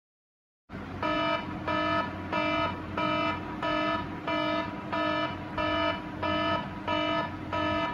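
An iOS tablet's alarm ringing: a repeating electronic tone that pulses about one and a half times a second, starting just under a second in after silence.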